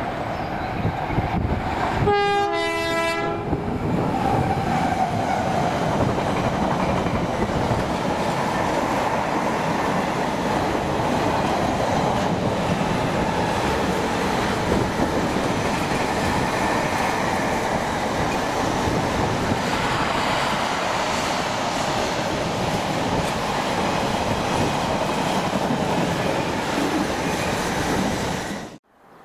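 Freight train passing: its locomotive sounds a two-tone horn about 2 s in, a higher note then a lower one, followed by the steady rumble and clatter of wheels on the rails as the train goes by. The sound cuts off suddenly near the end.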